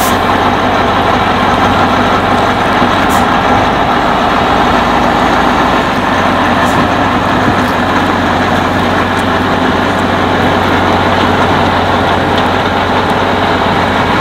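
Tatra 815 truck's air-cooled diesel engine running steadily at low revs as it moves off slowly, towing a bus.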